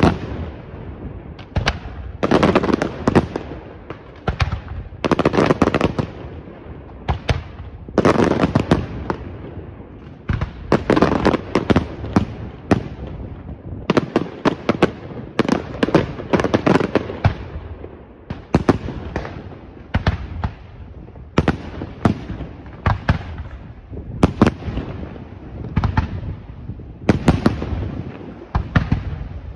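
A barrage of aerial firework shells bursting in quick succession: sharp bangs one after another, with dense clusters of many bangs packed close together every few seconds.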